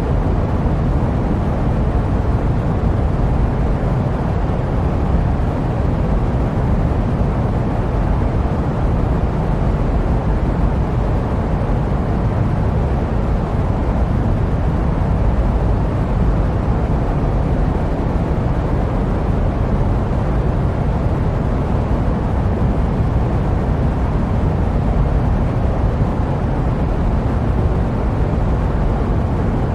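Jet aircraft noise played as sleep white noise: a steady, deep rumbling hiss with no change in pitch or level.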